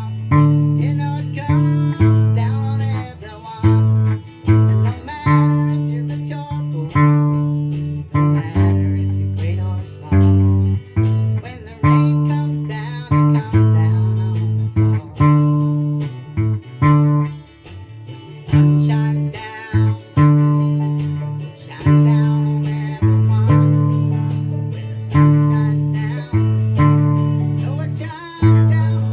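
Octave ukulele tuned like a bass guitar (E-A-D-G), played as a tune of plucked low notes and chords with a steady rhythm, the low notes changing about once a second.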